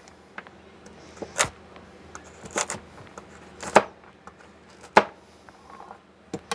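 Kitchen knife chopping hard carrots on a cutting board: sharp, irregular knocks about once a second.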